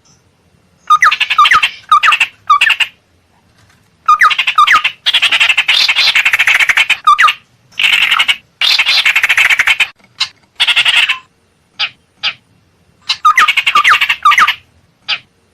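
Recorded calls of the ciung air, a tit-babbler, played as a bird-trapping lure. They come as repeated bursts of harsh, chattering rattles mixed with short hooked notes. Some bursts last two to three seconds and others are brief, with short silent gaps between them.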